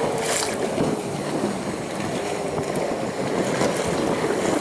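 Wind on the microphone and water rushing along the hull of a small sailboat under sail, with its motor off, with a brief louder rush just after the start.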